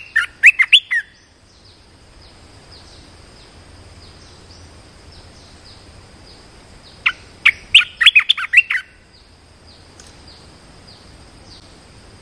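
Caged bulbul singing two short, fast phrases of bright, chirpy notes, one right at the start and one about seven to eight seconds in. Under them, faint high chirps repeat steadily throughout.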